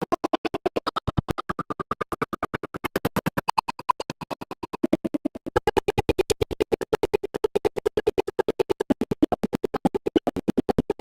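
A counting voice chopped into a rapid, even stutter of very short clipped snippets, about eight to nine a second, so fast that it sounds like record scratching rather than words.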